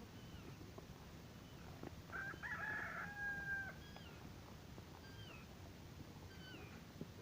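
A rooster crowing once, about two seconds in, a held call of about a second and a half. Small birds give short falling chirps every second or so.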